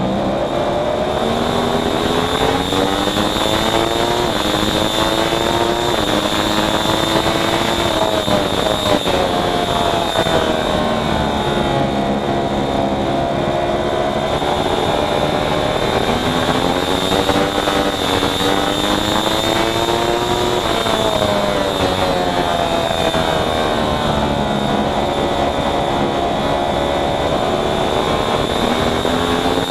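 Racing motorcycle engine heard onboard at race speed. Its pitch climbs in steps through several upshifts, then falls away as it slows for a corner, and this happens about three times, with steady wind rush over the microphone.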